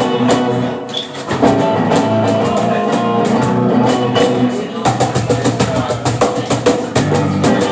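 A live band playing instrumentally: electric guitar and electric bass over a cajón slapped by hand, the percussion hits growing denser about five seconds in.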